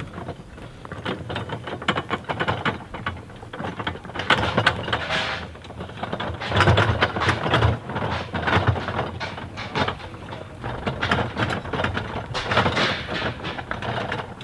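A wheeled cart pushed over rough dirt ground, its wheels and load rattling and clattering unevenly.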